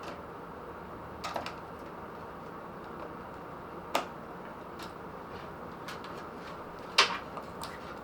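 A few sharp clicks and taps from cables and connectors being handled and plugged in inside a PC case, such as a SATA cable, over a steady background hiss. There is a small cluster about a second in, another click near four seconds and the loudest one about seven seconds in.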